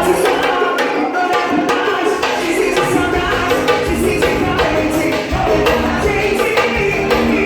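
Band music with busy hand percussion. The bass is thin for the first few seconds and comes in fully about three seconds in.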